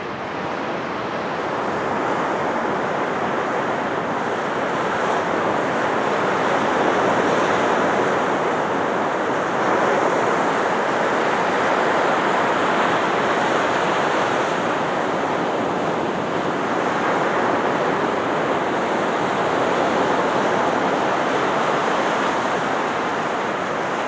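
Storm surf breaking on a sandy beach: a continuous rush of waves, rising and falling gently, with wind blowing across the microphone.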